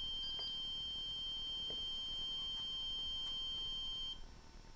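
REM pod sounding its alarm: a steady, high electronic tone that cuts off abruptly about four seconds in, a sign that the device is picking up a disturbance in its field.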